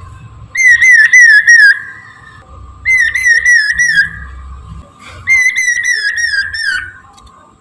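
Poksay mandarin songbird singing loud whistled song in three phrases, each a quick run of wavering, up-and-down notes, with short pauses between.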